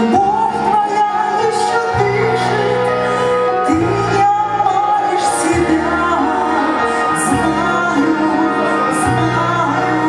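A woman singing a melody into a handheld microphone over instrumental accompaniment, its bass notes changing every couple of seconds.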